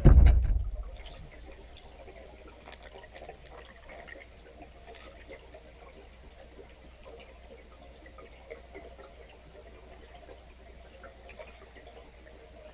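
Underwater sound picked up by a camera in a waterproof housing: a heavy low rumble of handling in the first second, then a faint low hum with scattered small ticks and crackles.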